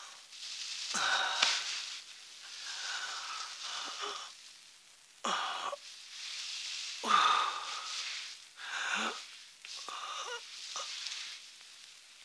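A man groaning and gasping in distress: about six strained, wheezing cries, each under a second long, several dropping in pitch as they end.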